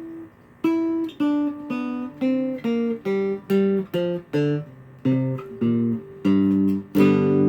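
Homemade four-string cigar box guitar with a hardcover-book body, tuned GDGB, played a note at a time: a melodic run of about fifteen picked notes, two to three a second, then a chord strummed near the end that rings on.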